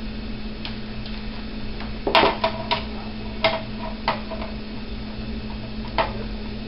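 Scattered clicks and taps of small screws and a screwdriver as a hard drive is screwed to the bottom of a DVR case, with a quick cluster about two seconds in and single clicks later. A steady low hum runs underneath.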